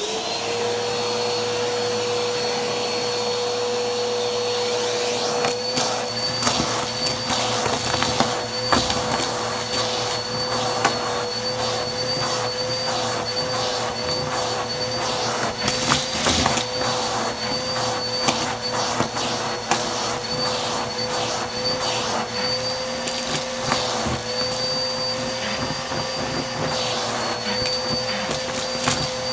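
Vacuum cleaner switched on and running with a steady whine, joined from about five seconds in by rapid clicks and rattles as it works.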